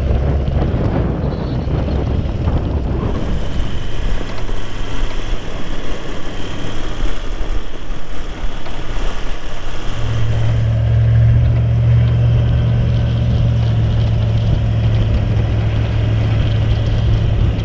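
Four-wheel-drive vehicle driving, its engine running with rough road and wind noise. About ten seconds in, a steady low engine drone comes up and takes over.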